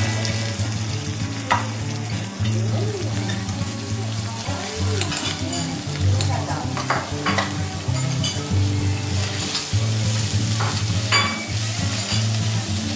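Diced onion, sliced mushrooms and garlic sizzling in oil on a hot flat steel teppanyaki griddle, with a metal spatula scraping and clicking against the steel now and then as they are stirred and chopped.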